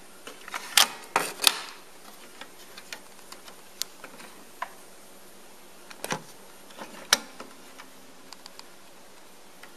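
Mechanical clicks and clunks from a Pioneer CT-F500 cassette deck's cassette door and piano-key transport buttons being worked by hand. Several sharp clicks come in the first second and a half, then single softer clicks every second or so, the loudest about seven seconds in.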